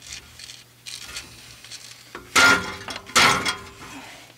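Rusty steel exhaust tailpipe being wrenched against the muffler joint, making two short bursts of metallic scraping and clanking, with a little ringing, a couple of seconds in, after lighter scuffing.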